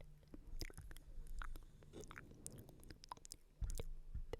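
Close-miked ASMR mouth sounds: irregular wet clicks and smacks.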